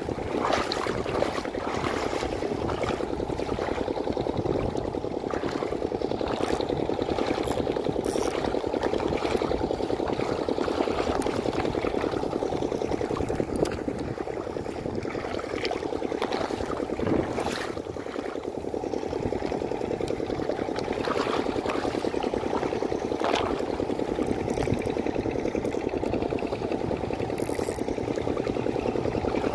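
Shallow seawater washing and trickling at the shoreline, a steady wash with a few soft clicks scattered through it.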